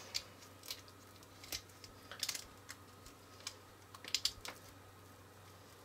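Hard plastic shell pieces of a Zuru Smashers eyeball capsule being fitted together by hand: faint, irregular clicks and taps, a few in quick clusters.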